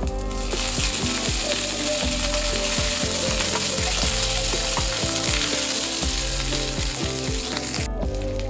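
Fresh curry leaves hitting hot oil in a pan of tempering spices, garlic and dried red chilli, sizzling and spattering hard. The sizzle swells about half a second in and cuts out briefly near the end.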